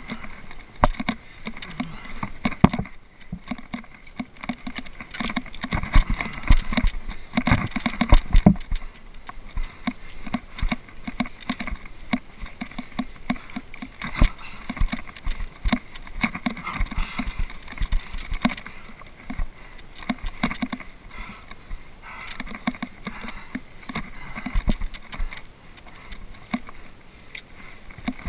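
Scrambling on a chained rock route: irregular knocks, scrapes and clinks of hands, gloves and boots on granite and fixed steel chains, heard close up.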